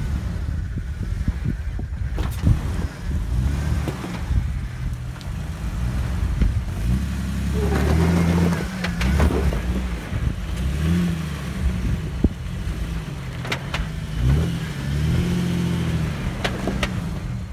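2019 Ram 1500 Rebel pickup's engine pulling on a rough off-road climb, its pitch rising and falling repeatedly with the throttle. A few sharp knocks come through along the way.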